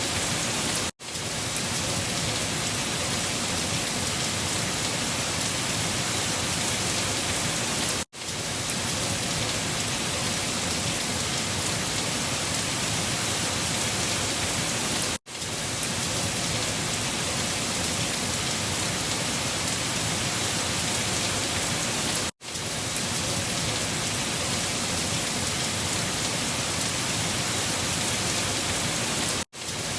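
Steady rain falling, an even hiss. It cuts out for an instant about every seven seconds, four times.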